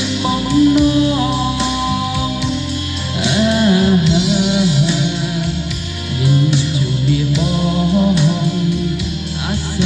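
Song music with a steady drum beat, a bass line and a gliding melody line.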